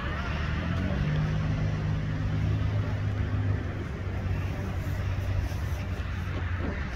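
Engine noise of an aircraft flying low past: a steady rush with a low hum that eases after about three and a half seconds.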